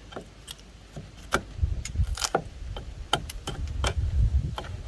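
Irregular light knocks and clicks of hand-tool work on timber, several a second, with a low rumble underneath from about a second and a half in.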